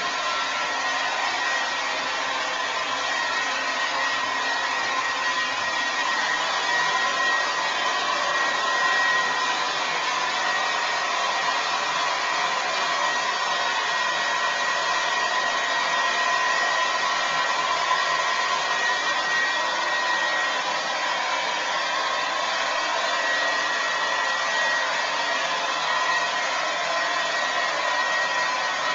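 Remington Shine hair dryer running steadily: an even rush of air with a high whine in it.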